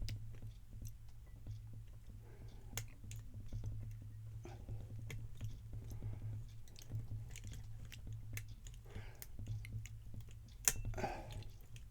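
Lock pick and tension wrench working the pins inside a Guard 365 padlock: scattered light metal clicks and scrapes, with one sharper click near the end. A steady low hum runs underneath.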